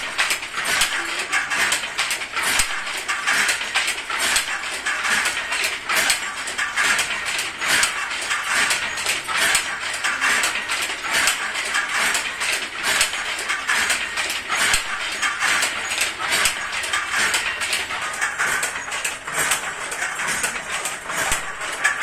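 Metal-framed semi-automatic handloom being worked by hand, its beater and moving parts making a steady clatter of quick clicks and knocks.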